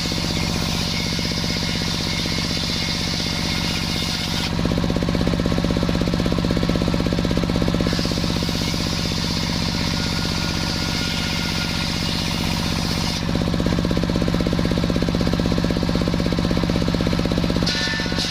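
Sawmill saw running under its engine, with a steady low hum and even pulsing throughout, while the blade cuts a waru log. A higher hiss comes and goes in stretches of a few seconds, dropping out about four seconds in and again past the middle.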